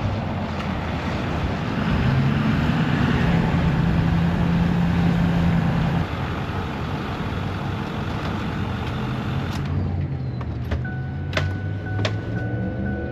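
2008 Ford F-250 pickup driving on the road: steady road and engine noise, the engine note rising about two seconds in and falling around six seconds. It runs smoothly, with no grinding from the newly replaced wheel hubs. The truck then quietens as it slows, with a few sharp clicks and a steady high tone near the end.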